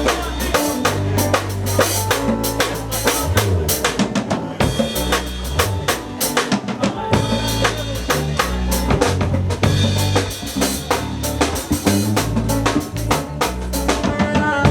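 Live band playing: a drum kit with bass drum, snare and rimshots keeping a fast, busy beat over deep bass notes.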